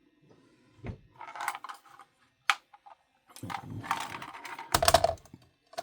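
Hard plastic clattering: 3D-printed planter pots being handled and set down, with two spells of quick rattling clicks, a sharp single click in between and a louder knock about five seconds in.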